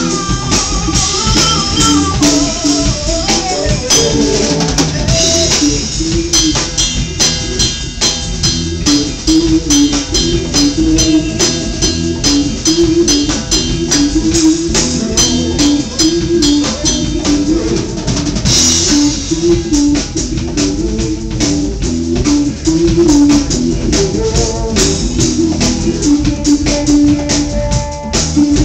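A live band playing an instrumental funk-reggae groove: drum kit and congas under an electric bass. A lap steel guitar slides a melody over the top, gliding in pitch during the first few seconds.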